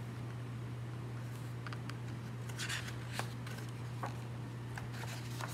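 Faint rustles and soft clicks of a hardcover picture book's paper pages being handled, over a steady low electrical hum.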